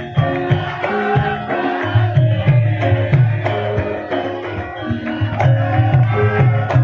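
Javanese gamelan music: ringing metallophone notes over hand-drum (kendang) strokes, with the low drum beats coming in steadily from about two seconds in.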